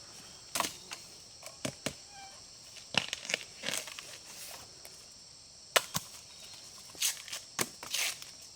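A string of irregular sharp cracks and knocks, about a dozen, some in quick pairs, over a steady high insect drone.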